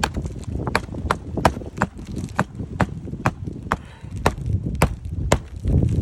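Hammer driving roofing nails into shingles: a steady string of sharp strikes, about two a second, over low wind rumble on the microphone.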